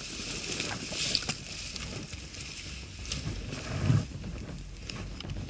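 Wind rumbling on the action camera's microphone, with scattered small clicks and rustles and a dull low thump about four seconds in.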